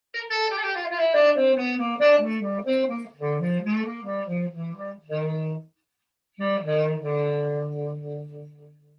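Saxophone playing a short melody: a run of notes stepping down in pitch, a brief break about six seconds in, then a closing phrase that ends on a long held low note.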